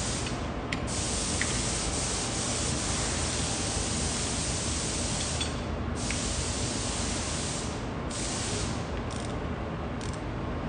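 Steady, even hiss, its higher part briefly dropping out a few times.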